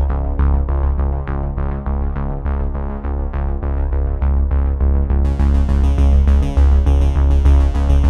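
Background synthesizer music with a steady pulsing beat and deep bass; a brighter, hissing high layer joins about five seconds in.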